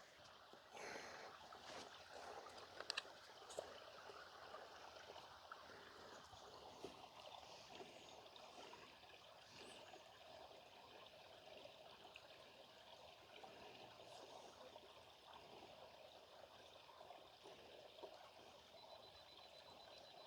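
Faint, steady trickle of a small shallow stream running over rocks in little waterfalls. A few light clicks in the first few seconds.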